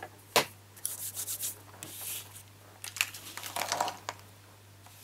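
Cardstock and paper being handled on a desk: a sharp tap about half a second in, then rubbing and rustling of card for a few seconds.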